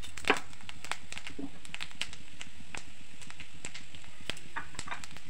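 Cumin seeds crackling and popping in hot ghee as a tadka (tempering) begins, the fat hot enough for the seeds to splutter. Irregular sharp pops, the loudest about a third of a second in.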